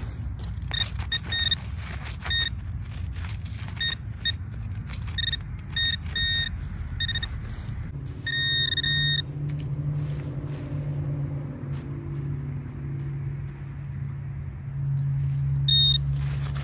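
Metal detector giving many short, same-pitched beeps as a target is checked, with scraping and clicks of digging. From about halfway in, a steady low engine hum of a vehicle joins in.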